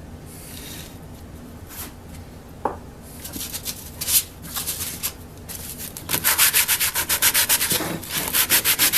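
Sandpaper rubbed by hand over an old wooden hand-saw handle, taking off the old finish and paint. A few scattered strokes and light knocks from handling come first, then steady back-and-forth sanding at about four strokes a second starts about two-thirds of the way through.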